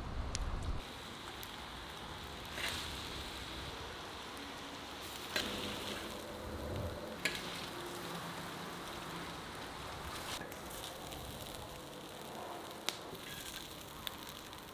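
Minced meat sizzling in a large wide pan on a wood-fired stove, with a few sharp clicks and scrapes of a metal spoon against the pan as the meat is scooped out onto a plate.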